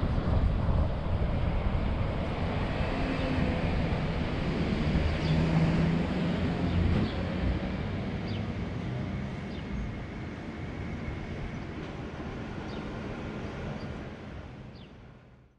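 Car driving on town roads, recorded by an in-car camera: a steady road and engine rumble that grows quieter in the second half, then fades out near the end.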